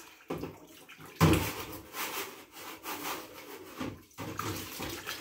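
Washing-up water sloshing and splashing in a kitchen sink as small glass jars are washed by hand, in irregular splashes, the loudest about a second in.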